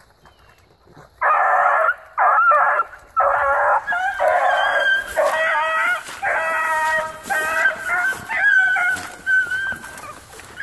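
Several young hounds baying, a run of long pitched howl-like calls that starts about a second in. From about four seconds in several voices overlap in a chorus, which grows fainter near the end.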